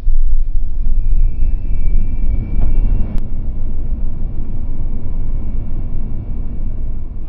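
Cabin noise of a Tesla Model 3 dual-motor accelerating hard from a standstill to about 60 mph on a wet road: a loud, steady low rumble of tyres and road noise, with a faint high whine in the first few seconds. A sharp click comes about three seconds in.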